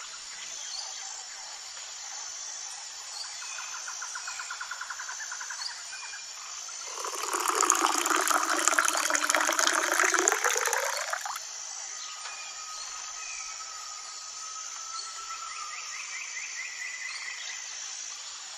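Water poured from above into a small plastic tub, splashing loudly for about four seconds, starting about seven seconds in. Under it runs a steady background of high chirping and short trills like insects and frogs.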